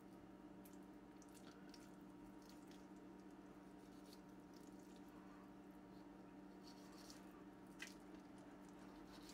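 Faint wet squishing and small clicks of a knife slicing fat and membrane off a raw pork shoulder, with fingers pulling at the meat, over a steady low hum.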